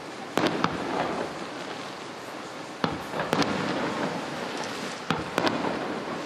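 Aerial firework shells bursting with sharp bangs, in three quick clusters of two or three, about two and a half seconds apart, over steady background noise.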